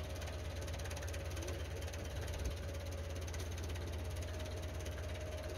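Old forklift's engine idling steadily, a constant low hum with a fast, even clatter, and a faint steady whine over it.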